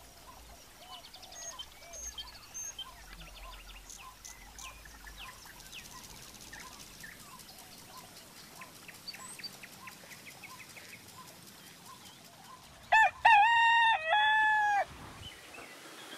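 Faint birdsong twittering, then about 13 seconds in a rooster crows once, loudly, for about two seconds: a short first note, a long held note, and a falling close.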